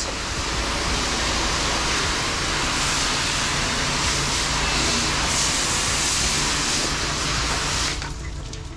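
Pressure washer wand spraying a steady loud hiss of soft-wash mix onto a house wall, with a low steady hum underneath. The spray cuts off about eight seconds in.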